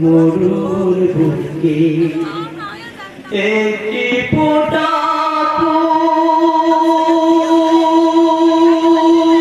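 A young man singing a Bengali gojol (Islamic devotional song) into a handheld microphone. About four and a half seconds in he settles on one long held note with a slight waver.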